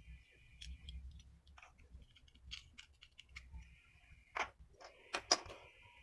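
Small plastic and metal parts of a dismantled fridge starting relay and overload protector being handled and set down on a bench: faint scattered clicks and taps, with a few sharper clicks near the end.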